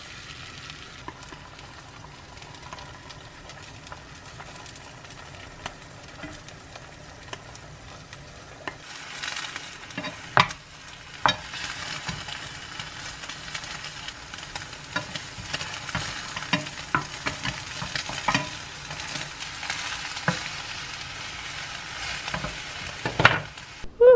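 Beaten egg sizzling as it fries in oil in a nonstick pan. From about nine seconds in the sizzle grows louder and a spatula scrapes and knocks against the pan as the omelet is folded.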